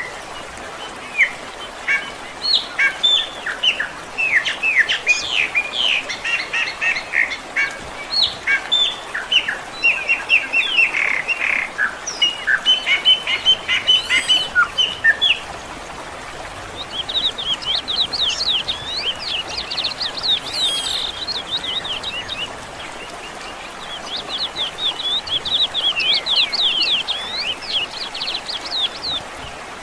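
Birdsong: a dense run of fast chirps and trills for about the first half, then two shorter phrases of quick, high, sweeping notes.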